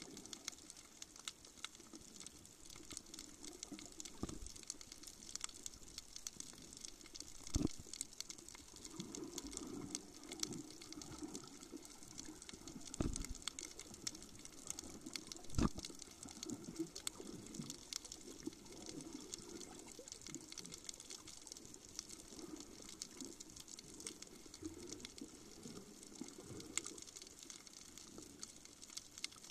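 Underwater sound over a coral reef: a dense, steady fine crackling over a low, irregular burbling of water, with four dull knocks in the first half.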